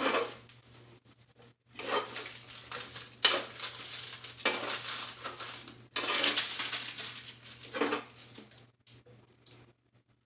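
Kitchen utensils scraping and clinking against pans and a plate while food is served up, in several bursts of clatter and scraping with short pauses between them. A faint steady hum sits underneath.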